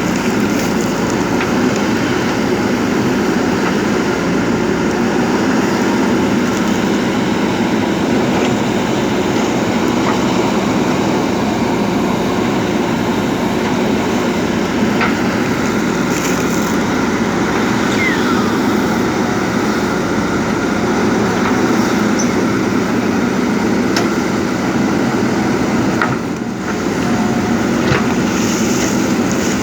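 JCB backhoe loader's diesel engine running steadily under load while it works, with a few scattered clicks and knocks and one short squeal about two-thirds of the way through.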